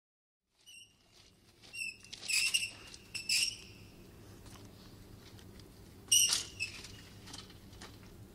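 Metal folding ironing board squeaking and clattering as its legs are opened and it is set up and leaned on: a handful of short, high squeaks, loudest about two and a half seconds in and again about six seconds in.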